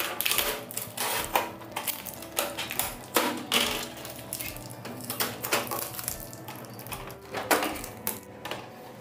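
Blue packing tape being peeled off the plastic housing of an HP DeskJet Ink Advantage 4178 printer and a cardboard packing insert pulled from its front opening: irregular crackling, rustling and sharp plastic clicks.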